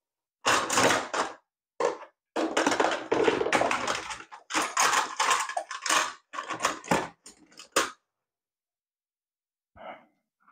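Clattering and rattling of hard plastic parts and tools being handled, in irregular bursts for most of the first eight seconds, during the teardown of a small toy robot.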